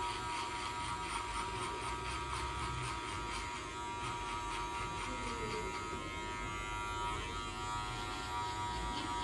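Electric hair clipper running with a steady buzz as its blade cuts close along the side of the head, setting a straight line for a high skin fade.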